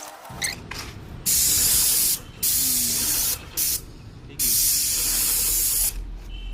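IN-STNT8 paint spray machine's spray gun hissing as paint is sprayed, starting and stopping: three sprays of about a second each and one very short one.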